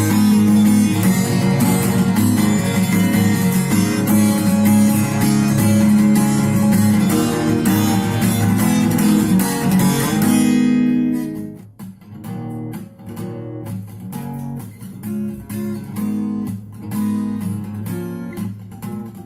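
Acoustic guitar strummed steadily with full chords. About ten seconds in the playing breaks off and resumes quieter, in a sparser rhythmic pattern of separate strokes.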